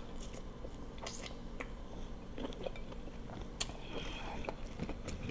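A person chewing and eating quietly: soft mouth smacks and scattered small clicks.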